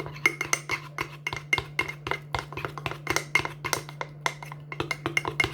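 A metal spoon clinking rapidly against the inside of a ceramic mug while stirring cake batter, several clinks a second, over a steady low hum.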